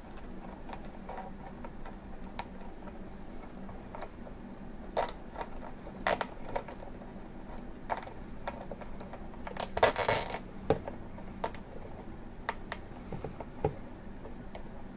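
Hands working a nylon cable tie around a fitting on a clear acrylic frame: scattered small clicks and scrapes, with a denser run of clicks about ten seconds in, over a faint steady low hum.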